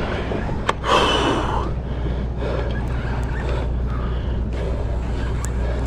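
Sportfishing boat's engine running with a steady low drone, and a brief rush of noise about a second in.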